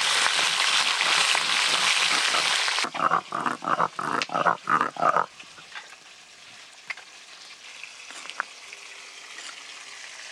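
Rohu fish pieces frying in hot oil in a wok, a loud, even sizzle that cuts off about three seconds in. Then a stone grinder scrapes back and forth over spice paste on a flat grinding stone, about seven rough strokes, followed by a few faint taps.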